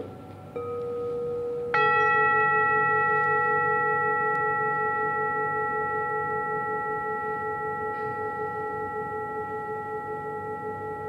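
Metal singing bowls struck in turn: a lighter strike about half a second in, then a louder one near two seconds. It rings on with several tones, fading slowly with a wavering beat.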